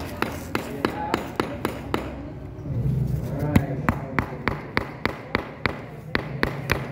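Claw hammer tapping small nails into a wooden kit, quick light strikes about four a second with one harder blow midway.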